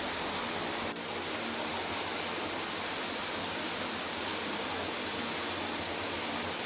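Steady rushing hiss of a gas stove burner on a high flame under a pan while a kuboos flatbread cooks dry on it.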